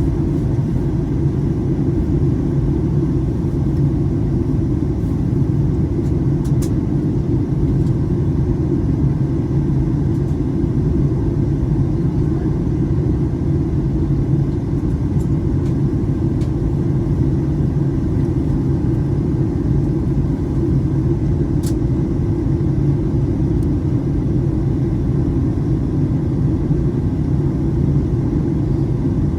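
Steady low rumble of a jet airliner's engines and airflow, heard from inside the passenger cabin during the descent to land.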